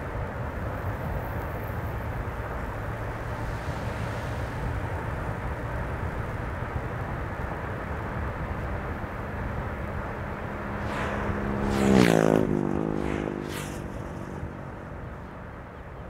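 Steady road and tyre noise of a car driving along a highway. About twelve seconds in, another vehicle passes: it grows louder with a steady engine tone, then the tone drops in pitch as it goes by, with a whoosh of air and tyres, and fades.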